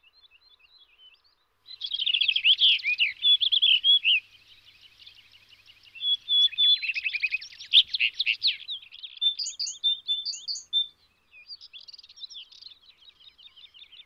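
Male blue rock thrush singing its courtship song: two loud warbled phrases, the second about six seconds in, then softer, broken twittering with a few higher notes.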